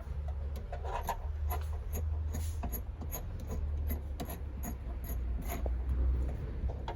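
Irregular clicks, scrapes and rubbing of parts and tools being worked by hand, over a steady low hum.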